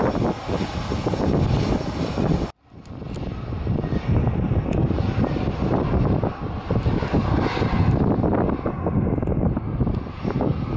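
Aircraft engine running under heavy wind buffeting on the microphone. The sound drops out abruptly for a moment about two and a half seconds in, then resumes.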